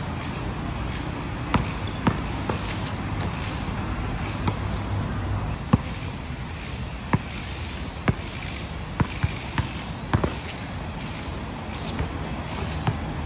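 A basketball bouncing on an outdoor hard court during one-on-one play: a dozen or so sharp, irregularly spaced thumps. Behind them run a steady low background noise and a high-pitched buzz that pulses about twice a second.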